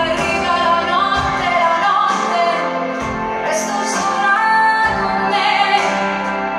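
Live pop ballad: a woman singing over instrumental accompaniment, with low beats about every second or two.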